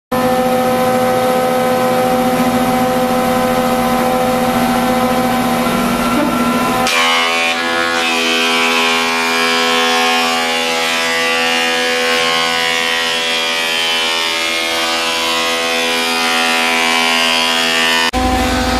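A 15-inch thickness planer running with a steady motor hum while a walnut board is fed through its cutterhead. About seven seconds in the sound turns to a higher hiss, and near the end it drops back to a lower hum.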